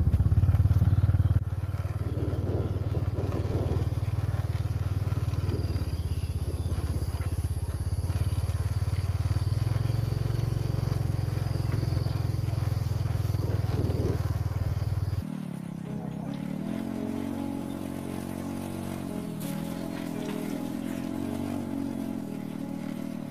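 Small motorcycle engine running steadily as the bike rides along a dirt track. About 15 seconds in, the sound cuts abruptly to a quieter, pitched hum.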